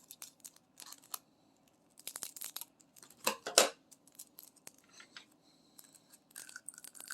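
Scissors snipping open a small plastic bag of diamond painting drills, with light clicks and rustling and two louder snips about three and a half seconds in.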